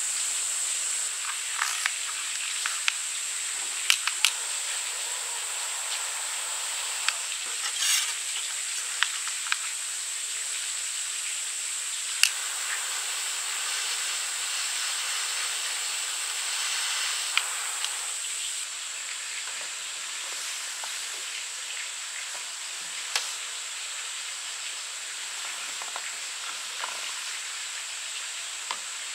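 Steady high-pitched outdoor hiss with scattered small clicks. About halfway through, a butane torch lighter's jet flame hisses for some four seconds as it lights a mosquito coil.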